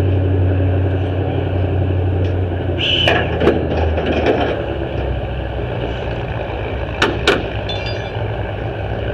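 Vehicle engine idling with a steady low hum that fades about four seconds in. A brief high squeal comes near three seconds, and sharp knocks come around three and a half seconds and twice about seven seconds in.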